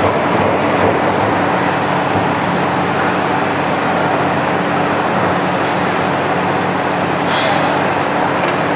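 Automatic sheet-metal punching machine running, a steady loud mechanical din over a constant hum, with a short hiss about seven seconds in.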